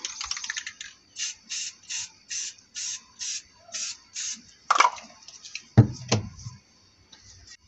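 Aerosol spray-paint can rattling briefly as it is shaken, then about nine short, evenly spaced hisses as paint is sprayed in quick puffs. Two sharp knocks follow about five and six seconds in.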